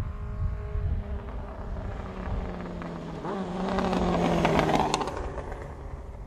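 1980 Honda CB750C's air-cooled DOHC inline-four through a Carpy's 4-into-1 exhaust as the motorcycle passes by. The engine note builds, is loudest about four to five seconds in, and drops in pitch as the bike goes past and away.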